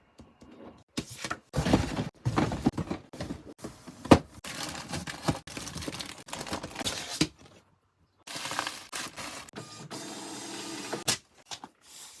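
Cardboard model kit boxes being handled and packed: irregular rustling, sliding and knocks, with a short pause about eight seconds in and a steadier scraping noise after it.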